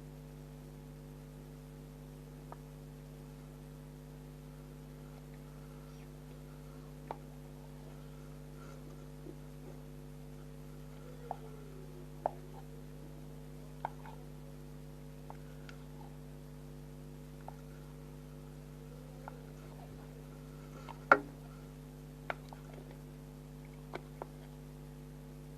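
Steady electrical hum with scattered light clicks and taps, and one louder click about 21 seconds in.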